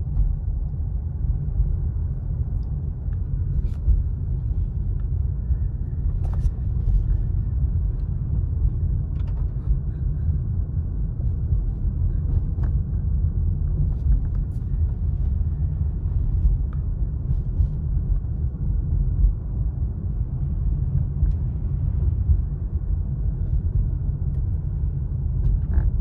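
Steady low rumble of a car driving at low speed, heard from inside the cabin, with a few faint ticks.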